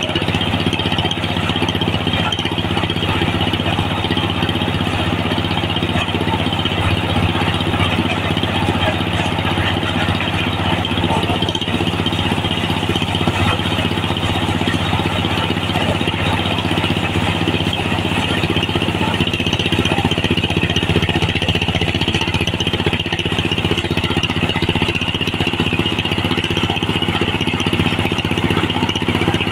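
Diesel engine running steadily, driving a corn sheller, mixed with a continuous rattling hiss of corn being threshed through the drum.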